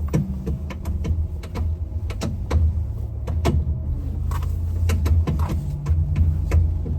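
Ram ProMaster front strut clicking and knocking irregularly as the steering wheel is turned: the coil spring catches and releases as it rotates, the sign of a bad strut bearing. A steady low hum runs underneath.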